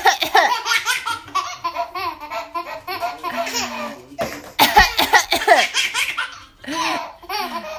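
Eight-month-old twin babies laughing in repeated bursts, pausing briefly about four seconds in, then laughing again.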